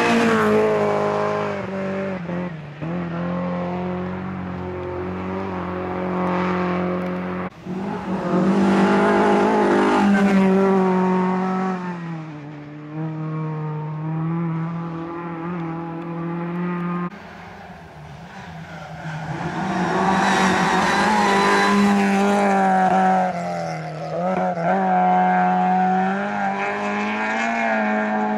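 Rally cars' engines at full throttle passing on a gravel stage, their pitch climbing and dropping with each gear change. The sound changes abruptly twice, at about 7 and 17 seconds, as one car's pass gives way to the next.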